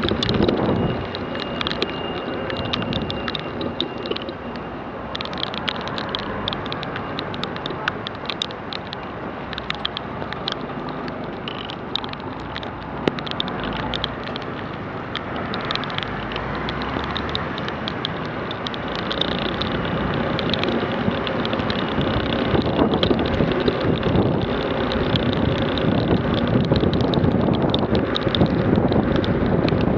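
Road and wind noise from riding on a rain-soaked street: a steady rush of tyre spray and wind, dotted with many small sharp ticks of raindrops hitting the camera. It grows louder over the last ten seconds or so.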